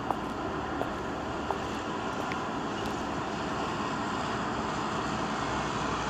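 A steady rushing noise with a few faint clicks early on.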